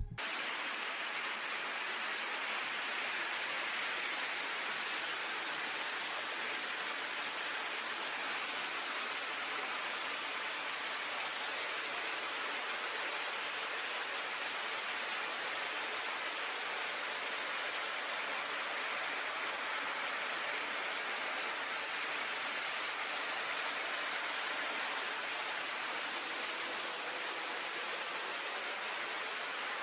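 Water flowing along a tunnel: a steady, even rushing hiss with little low end.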